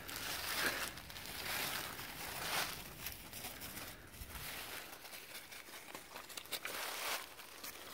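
Footsteps crunching and rustling through dry fallen leaves, about one crunch a second at a walking pace.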